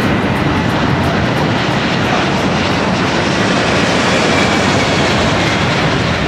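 Jet airliner engine noise: a loud, steady rushing sound.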